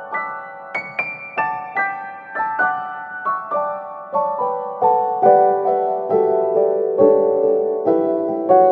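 Background piano music: single notes struck at an unhurried pace, about two or three a second. The melody steps downward and settles into a lower register about halfway through.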